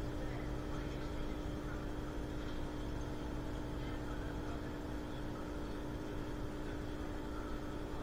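Historic Basel tram running steadily: an even rumble of the moving car with a constant hum held at one pitch throughout.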